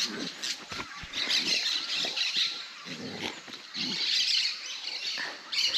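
Two dogs playing rough: scuffling, with short animal noises coming in irregular bursts.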